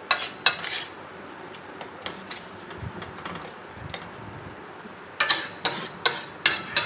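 Metal spatula clanking and scraping against a tawa as minced meat is stirred and mashed: a few sharp strikes at the start, a quieter stretch, then a quick run of strikes near the end.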